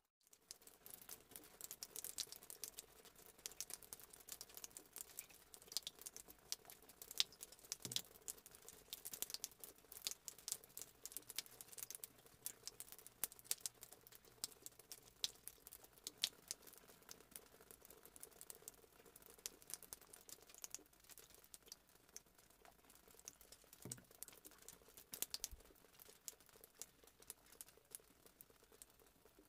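A spoon and spatula stirring thick cake batter, with faint, irregular clicks and scrapes against the sides of the bowl and cup.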